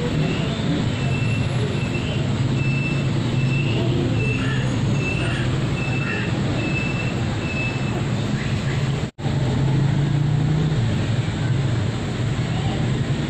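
Steady low engine hum over a background of traffic-like noise, with a run of about ten short, evenly spaced high beeps in the first seven seconds. The sound cuts out for a moment about nine seconds in.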